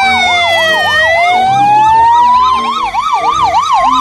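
Two ambulance sirens sounding together. One sweeps slowly down and back up in a long wail, while the other warbles rapidly up and down about three times a second.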